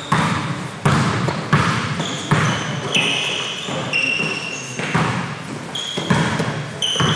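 A basketball being dribbled on a gym floor, bouncing at a steady rate of about one bounce every three-quarters of a second, with short high squeaks between the bounces.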